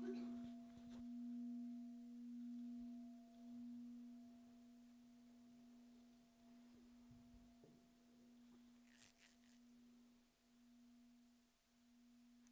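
A large Buddhist bowl bell rings on after a strike: one steady low hum with fainter overtones that pulses slowly as it fades. A brief faint rustle comes about nine seconds in.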